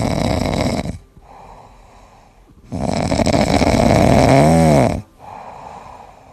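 Loud snoring: two long noisy in-breaths about three seconds apart with quieter out-breaths between, the second in-breath ending in a short squeak that rises and falls in pitch.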